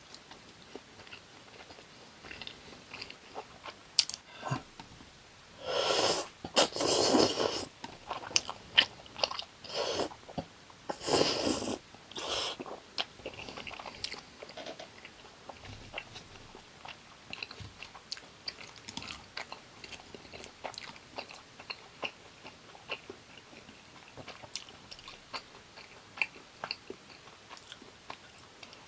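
Close-miked mukbang eating of fried gimmari in tteokbokki sauce: chewing with many small wet mouth clicks, and two louder crunching stretches about six and eleven seconds in.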